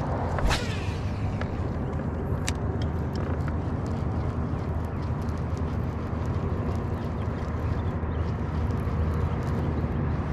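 Steady low hum and wash of noise from a fishing boat on open water, with a sharp splash about half a second in as something hits the water near the boat.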